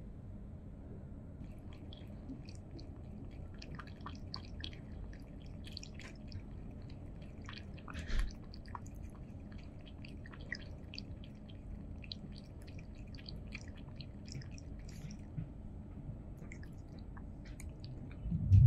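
Scottish Fold cat lapping water from a tall stainless steel cup: an irregular run of small wet clicks and slurps from the tongue at the water's surface. A couple of loud low thumps come right at the end.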